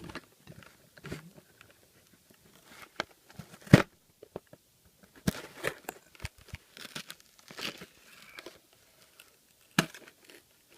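Scissors cutting into the cardboard and plastic packaging of a boxed processor, with crinkling, tearing and irregular sharp snips and clicks. The loudest snip comes a little under four seconds in.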